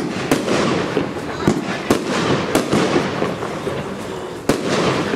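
Category II compound fireworks battery firing: about six sharp shot reports at uneven spacing, with a steady hiss between them as the gold-tailed bursts open.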